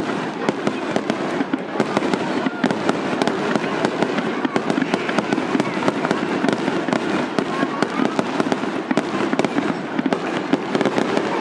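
Aerial fireworks bursting in rapid, continuous succession: a dense stream of sharp pops and crackles, with a faint whistle or two about eight seconds in.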